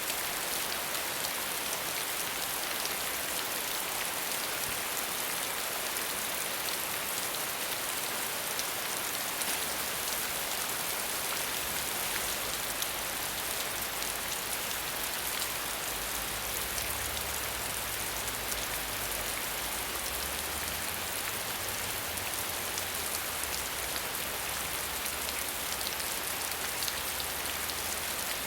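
Heavy rain falling steadily: a dense hiss of drops with scattered sharper drop ticks. A faint low rumble joins about ten seconds in.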